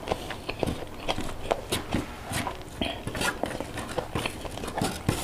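Close-miked eating sounds: chewing, and fingers picking through fried fish and rice on a plate, many small irregular clicks and crackles.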